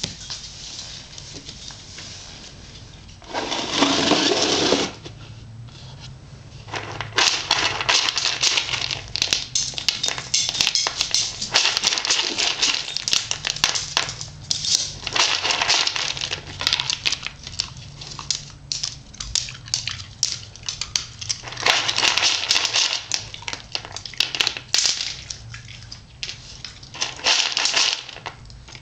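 Dry dog kibble rattling and clicking in a plastic bowl as a baby's hand rakes through it, in several spells of dense small clicks with short pauses. A short burst of loud hissing noise comes about four seconds in.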